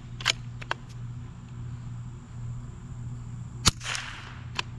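A .22 LR rimfire bolt-action rifle (a RimX action converted to the ModX design) fires once about three and a half seconds in: a single sharp crack with a short echo. Before and after the shot come a few lighter clicks as the bolt is cycled to eject and chamber a round.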